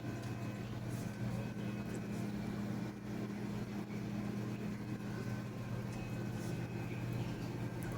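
Steady low mechanical hum with a constant pitch, such as a motor or pump running, with a few faint high clicks.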